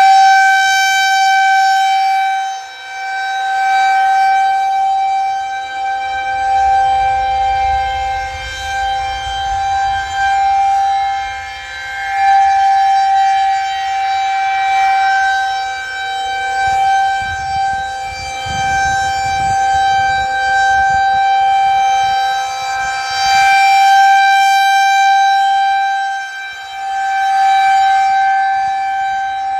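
Federal Signal 2001-130 outdoor warning siren sounding a steady tone for a tornado warning. Its pitch holds level, while its loudness swells and fades about every twelve seconds as the rotating siren head sweeps past.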